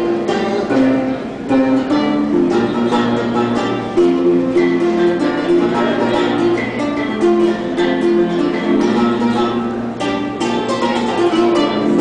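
A long-necked plucked string instrument with a round gourd body, playing a continuous run of plucked notes in repeating phrases.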